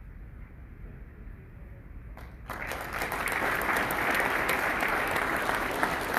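Low, quiet room noise, then about two and a half seconds in an audience starts applauding, building quickly and carrying on steadily.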